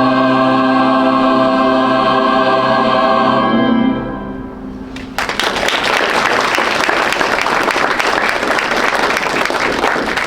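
A high school choir holds the final chord of a song, which then dies away. About a second later the audience breaks into sustained applause.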